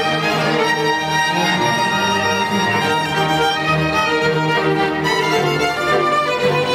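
String orchestra playing: violins, cellos and double basses bowing sustained notes in a classical piece.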